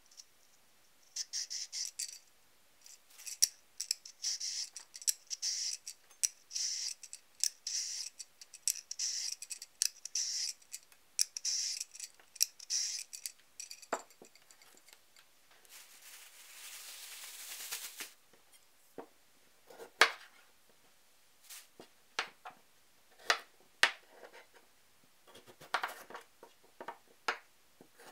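A vegetable peeler scraping strips of skin off a carrot in quick, repeated strokes, then a kitchen knife cutting the peeled carrot into chunks, each cut a sharp knock on the cutting board.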